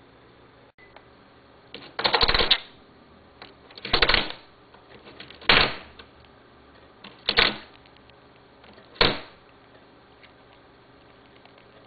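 A budgerigar pecking at a plastic toy, making five short bursts of clattering clicks about one and a half to two seconds apart, the first two a little longer.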